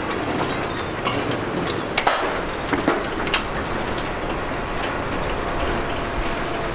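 Demolition excavator working in a collapsed steel-framed warehouse roof: a steady noise of machinery and shifting scrap, with sharp metal clanks and crashes about two seconds in and twice more around three seconds.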